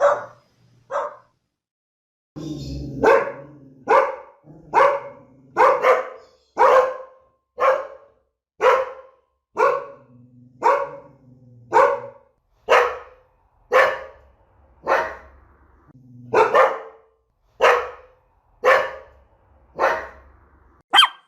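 A dog barking in a steady series of single barks, about one a second, after two barks and a brief silence.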